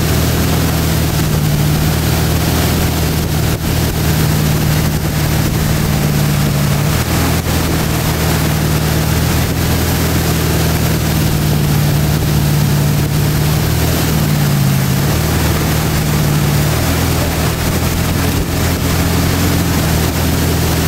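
Tow boat's engine running steadily at pulling speed, over a constant rush of wind and water; its pitch sags briefly about two-thirds of the way through.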